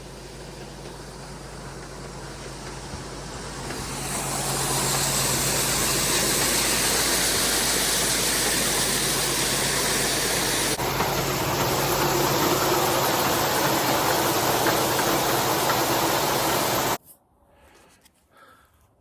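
Grain auger and grain cleaner running with shelled corn pouring through: a steady low hum under a loud rushing hiss of moving grain that builds over the first four seconds. It stops abruptly near the end.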